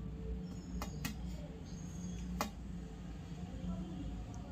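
A few light clicks and taps as bread slices are rolled around the banana filling by hand on a steel plate, over a steady low hum.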